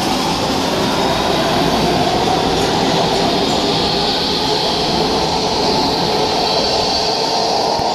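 MARTA rapid transit train pulling out of an underground station platform: a loud, steady rush of wheels on rail and car noise with a faint high whine that rises slightly.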